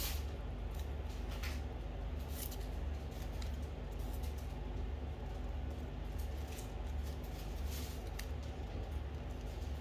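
Small scissors snipping folded coloured paper, with the paper rustling in the hands: scattered short, crisp snips and crinkles over a steady low hum.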